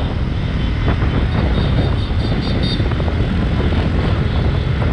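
Motor scooter engine running at a steady road speed, with wind rushing over the microphone.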